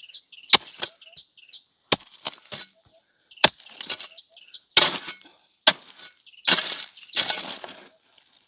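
Repeated sharp chopping blows of a hand tool, four of them about one and a half seconds apart, with brush and branches crackling as they break between the strikes. A small bird chirps now and then.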